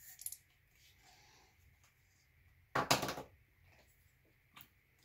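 Air blown by mouth through a Sawyer Mini water filter, pushing out the water left inside it: a faint short rush at the start, then about three seconds in a loud, noisy blast lasting about half a second.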